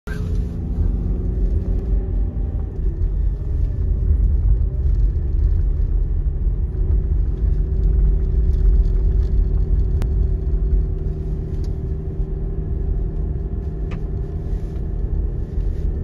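Car interior road noise while driving: a steady low rumble of tyres and engine with a faint steady hum, and a couple of light clicks.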